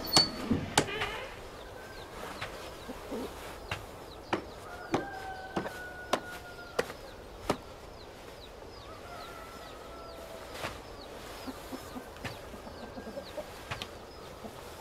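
Farmyard ambience: chickens clucking and small birds chirping, with sharp knocks at irregular intervals, most of them in the first eight seconds.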